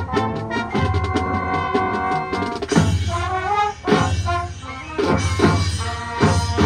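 High school marching band playing in its field show: brass and woodwinds hold chords over drums, then break into a run of sharp accented hits about three seconds in.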